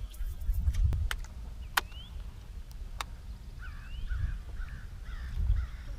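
A crow cawing, about six caws in quick succession through the second half, over a steady low rumble. A few sharp clicks come earlier.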